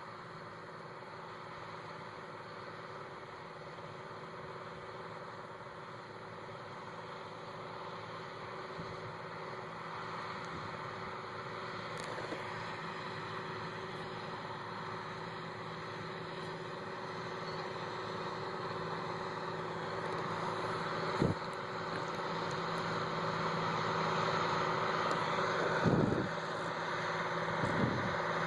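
Engine of sugar beet harvest machinery running steadily and growing gradually louder as it comes closer, with a few sharp knocks or clunks near the end.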